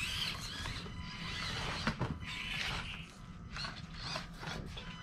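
Axial SCX24 micro RC crawlers' small electric motors and geared drivetrains whirring as the throttle is worked on and off, with a few clicks from the trucks on the dirt.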